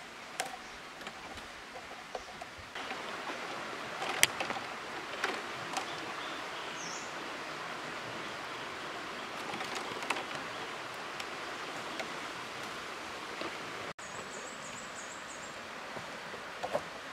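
Steady outdoor background rush of flowing stream water, with scattered light clicks and taps from split bamboo strips being handled and tied, one sharp click about four seconds in the loudest. A few faint bird chirps sound high above.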